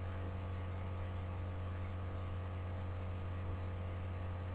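Steady low electrical mains hum with a faint hiss.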